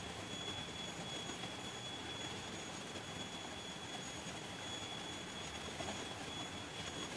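Steady riverside ambience: an even rushing noise with thin, high-pitched insect whines over it.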